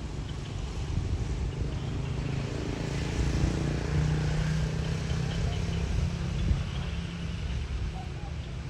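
A motor vehicle's engine running steadily, growing louder toward the middle and easing off again as it passes.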